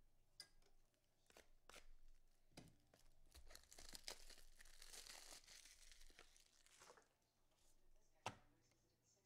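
Faint tearing and crinkling of a trading card pack wrapper being ripped open, lasting a few seconds. Light clicks of card handling come before it, and one sharp click near the end.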